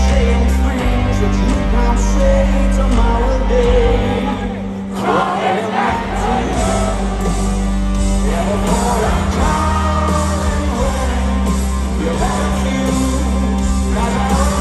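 Live rock band playing, with a deep sustained bass line, drums and a male lead vocal. The low end thins briefly about five seconds in, then the singing carries on.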